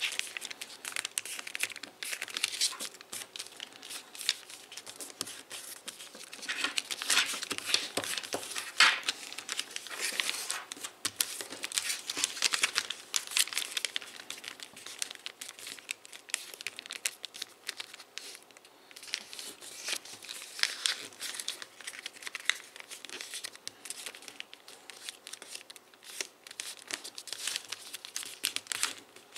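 Sheet of foil origami paper crinkling and rustling as hands fold and crease it: a dense, irregular run of small crackles, with a sharper crack about nine seconds in.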